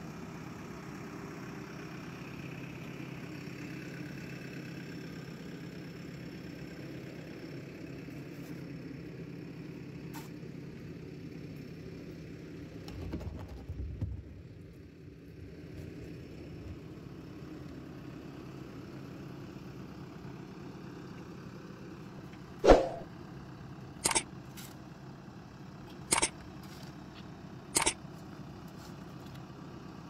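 JCB 3DX backhoe loader's diesel engine idling steadily, with a brief low rumble near the middle. In the last third, a steel shovel clangs against the loader's steel bucket: one loud ringing clang, then four more every couple of seconds.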